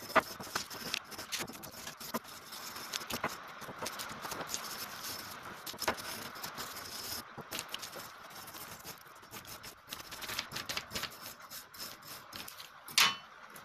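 Small hand wire brush scrubbing surface rust off steel taps and dies: a steady, scratchy scraping full of quick small clicks as the bristles and the metal pieces knock about. A brief louder noise comes near the end.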